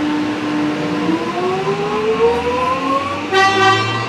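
X'Trapolis 100 electric multiple unit accelerating away from a station. Its traction motors hold a steady whine, then about a second in several tones rise together in pitch as the train gathers speed. A short, loud pitched toot comes about three seconds in.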